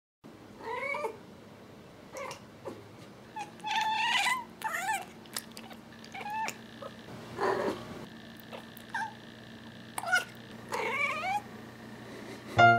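Tortoiseshell cat meowing in a string of about a dozen short calls spread over some eleven seconds, several of them bending up and down in pitch like chatty 'talking'.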